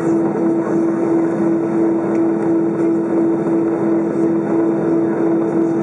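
Cabin noise of an Airbus A320 on the ground: its jet engines and the airflow running as a loud, steady drone with a constant hum.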